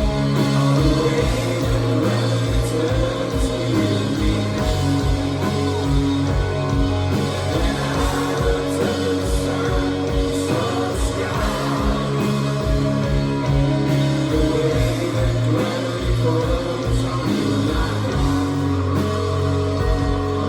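Live rock band playing: electric guitars, bass and drum kit with steady kick-drum beats, and a singer's voice over them.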